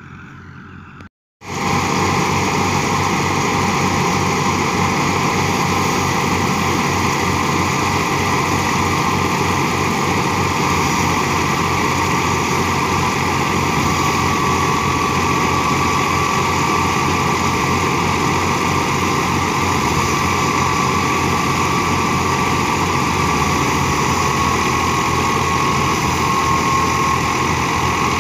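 Fiat 480 tractor's three-cylinder diesel engine running steadily under load, driving a wheat thresher through its PTO, with the thresher drum's steady high whine over the engine. It comes in abruptly about a second in. The engine is labouring because the wheat is wet, which makes threshing hard for the tractor.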